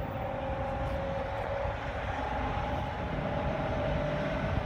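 Faint, distant horn of an approaching Norfolk Southern freight locomotive, a steady multi-note chord sounded in long blasts, over a constant low rumble.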